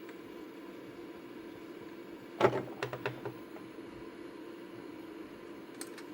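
A few knocks and clicks of bench equipment being handled, a sharper clunk about two and a half seconds in followed by two lighter taps and faint clicks near the end, over a steady low hum.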